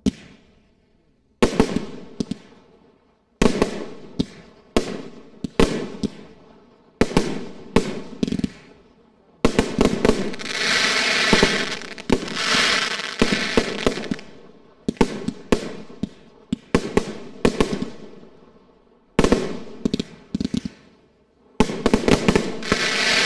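Aerial display fireworks: the sharp bangs of shells bursting, each fading away after the report, in groups every second or two. The bangs start about a second and a half in and thicken into dense runs of overlapping reports about ten seconds in and again near the end.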